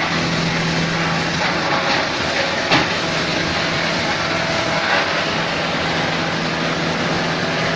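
Machinery of a sawdust pellet-making line running steadily: a constant mechanical drone with a low hum, and a few short knocks, the clearest nearly three seconds in.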